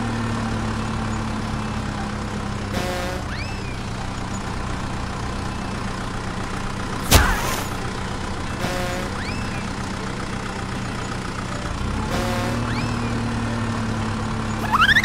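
Heavy truck engine sound running steadily, laid over the scene as a repeating sound effect, with one sharp loud knock about halfway through.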